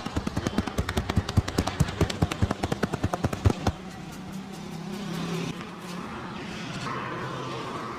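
Fast percussive hand slaps and taps of a barber's head massage, several a second, stopping suddenly about three and a half seconds in; after that comes a steady background of street noise.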